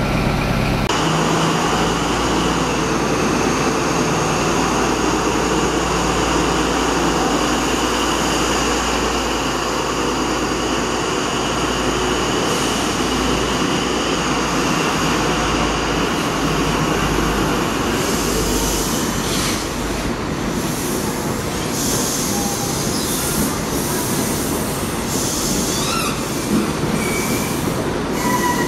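InterCity 125 high-speed train pulling out. The Class 43 diesel power car runs with a steady low rumble and a high whine, and from about 18 seconds in the coaches roll past with rail noise and short wheel squeals.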